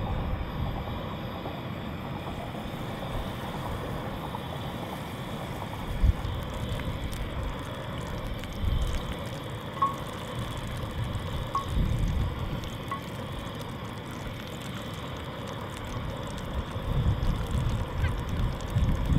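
Steady hiss of a portable gas camp burner running under a cast iron skillet, with wind buffeting the microphone in gusts several times.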